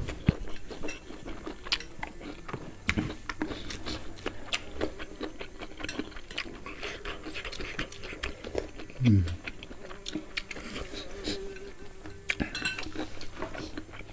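Eating by hand at a table: metal spoons clinking against a ceramic soup bowl and plate, scattered small clicks and mouth sounds of eating, with a short low grunt falling in pitch about nine seconds in.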